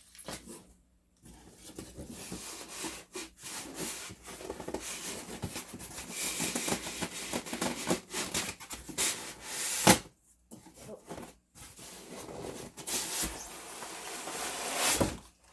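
Packaging being handled while fan parts are unpacked from the box: irregular rubbing, scraping and rustling with small knocks, broken by short pauses, and one sharper knock about ten seconds in.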